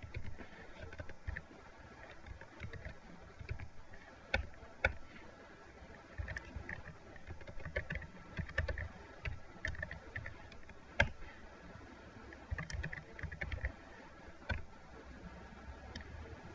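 Typing on a computer keyboard: irregular keystrokes in short runs with pauses, and a few louder single key strikes.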